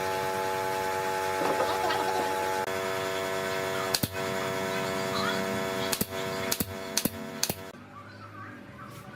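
A steady mechanical hum of several pitches, broken by five sharp clicks over the second half. The hum cuts off suddenly near the end.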